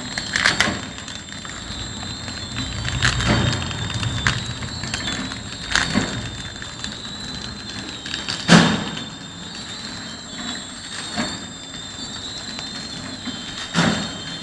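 Horizontal flow wrap machine running, wrapping bars in plastic film: a steady mechanical run with a constant high whine, and a sharp clack about every two and a half to three seconds, the loudest about eight seconds in.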